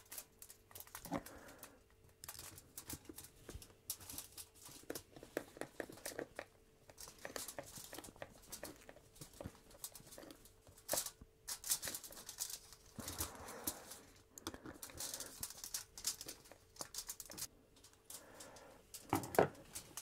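Hand screwdriver driving a wood screw through an aluminium strip into a wooden block: a faint run of short scratchy creaks and clicks as the screw turns, with aluminium foil crinkling under the work.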